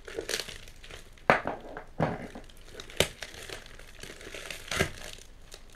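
Red-and-white printed wrapping being crinkled and torn off a small parcel by hand, in several sharp crackles and rips about a second apart.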